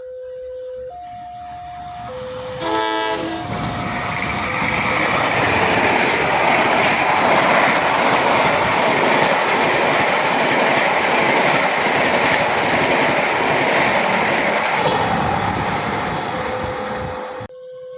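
Train horn sounding briefly, then a train passing at speed, its rush of wheel and running noise swelling and slowly fading. In the first few seconds a steady warning tone switches back and forth between two pitches.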